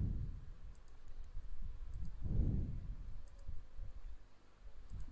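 A few faint computer mouse clicks, with two low muffled rumbles, one at the start and one about two and a half seconds in.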